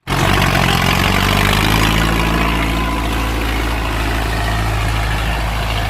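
Ford 6610 tractor's four-cylinder diesel engine running loud and steady at an even speed.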